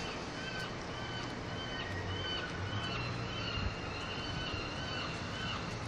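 Night-time city alley ambience: a steady hum of distant traffic, with a run of short, high chirps repeating about twice a second throughout.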